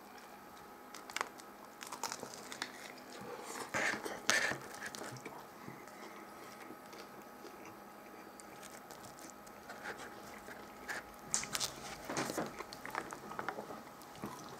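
A crusty toasted grinder sub being bitten into and chewed: scattered crunches and crackles of the crisp bread and lettuce, loudest about four seconds in and again from about eleven to thirteen seconds.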